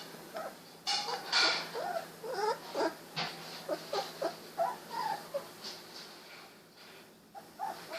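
Young Golden Retriever puppies, about two weeks old, squeaking and whimpering in a string of short, high calls that thin out toward the end, with a brief rustle of movement about a second and a half in.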